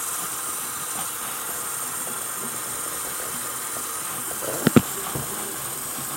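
Tap water running steadily into a sink as a doll's hair is wetted, with a couple of sharp knocks about three-quarters of the way through.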